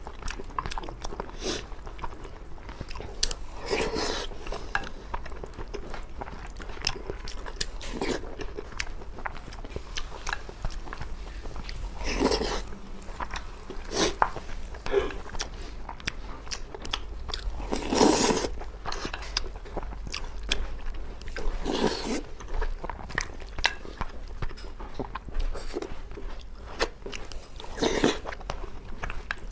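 A person eating braised pork belly over rice close to the microphone: steady chewing with many small mouth clicks, and a louder bite or mouthful every few seconds.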